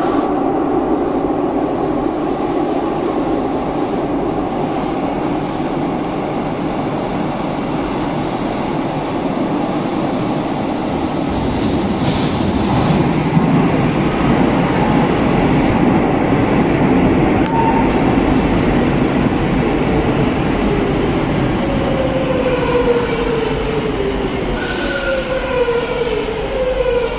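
Madrid Metro Line 6 train running into the station from the tunnel, its wheels and motors loud throughout. Near the end the motor whine falls in pitch as the train slows to a stop at the platform.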